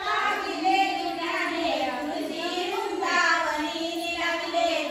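A group of women and girls singing a song together, one continuous melody rising and falling without a break.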